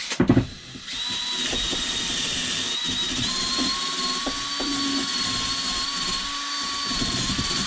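Cordless DeWalt drill spinning a wire brush against a rusty metal pump part to scour off corrosion: a steady motor whine over a scraping hiss, with the pitch lifting slightly about three seconds in. A couple of knocks come just before the drill starts.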